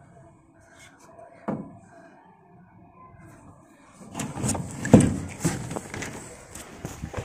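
Handling noise from a hand working close to the microphone: a single click about a second and a half in, then from about four seconds rustling and several knocks, the loudest about five seconds in.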